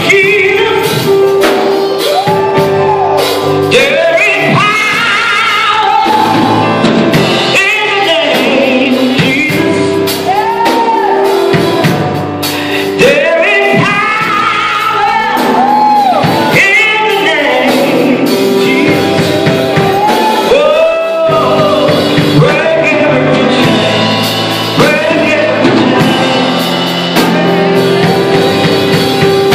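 Live gospel singing amplified through a church PA: a singer's voice sliding through long, swooping notes over a held keyboard chord and drums.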